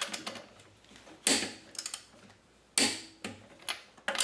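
Wagan 2257 12-volt impact wrench hammering as lug nuts are run back on and tightened: a series of sharp clacks, the loudest about a second and a half apart, with smaller ones between.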